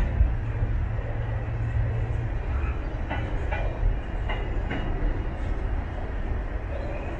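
Container freight train's flat wagons rolling past: a steady low rumble of wheels on rail, with short sharp clacks now and then as wheels pass over the rail joints.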